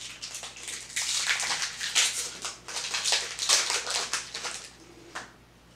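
Foil wrapper of a Pokémon Sword & Shield booster pack torn open by hand: a run of crinkling and ripping that dies away near the end.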